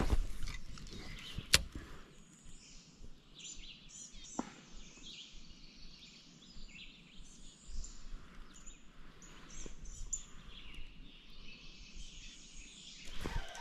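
A spinning-rod cast swishes at the start, followed about a second and a half later by a sharp click. After that, birds chirp and sing in short, scattered calls over faint outdoor background noise.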